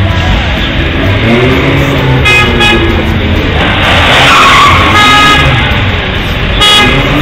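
Vintage Alfa Romeo Spider sports cars, with twin-cam four-cylinder engines, driving past one after another, their engine notes rising and falling. The loudest moment is a rush of engine and tyre noise about four seconds in, as one car passes close.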